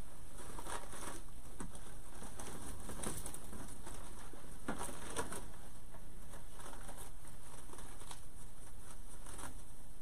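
Fabric ribbon loops and the grapevine wreath rustling and crinkling as bow loops are handled and adjusted, in short scattered rustles over a steady background hiss.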